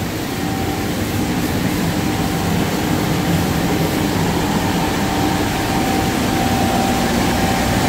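Steady drone of a CNC router's vacuum hold-down pump and dust collector running together: a broad, even rush with a few constant hums. The vacuum is holding the sheet down on the table.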